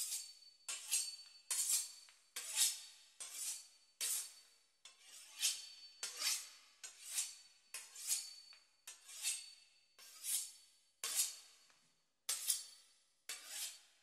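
A knife sawing through the crisp puff-pastry crust of a beef Wellington: a crunchy, rasping stroke roughly every three-quarters of a second, over and over.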